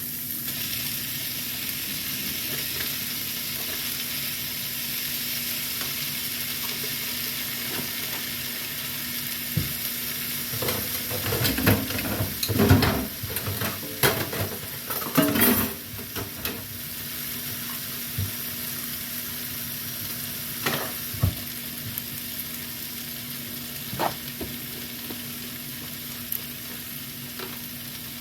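Food sizzling as it fries in a pan, a steady hiss. It is broken by a spell of clattering and stirring about halfway through, then a few single taps.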